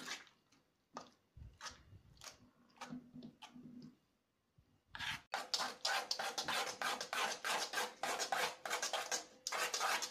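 Hands mixing wet herbal henna paste in an iron bowl: a few faint scattered sounds, then, from about five seconds in, a quick run of wet rubbing, scraping strokes against the bowl, several a second.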